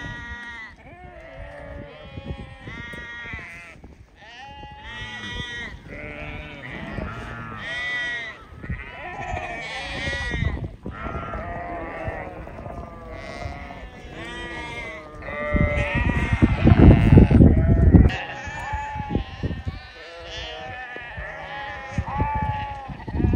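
A flock of sheep bleating, many overlapping calls one after another. About two-thirds of the way in, a loud low rumbling noise lasting about two seconds rises over the calls.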